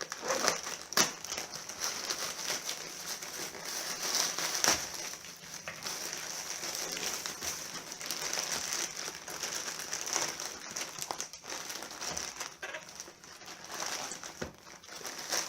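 Parcel packaging being crinkled and handled as a box is unpacked: continuous crackling and rustling with many sharp clicks, loudest about a second in and near 5 seconds in.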